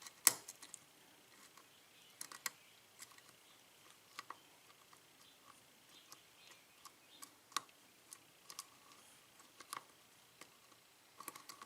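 Faint, irregular metallic clicks and ticks of a lock pick working the pins of a six-pin Corbin pin-tumbler cylinder lock with serrated and spool pins. The loudest click comes just after the start.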